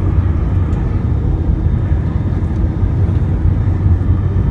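Airbus A320 cabin noise on approach, heard from a window seat over the wing: a steady, loud low rumble of engines and airflow.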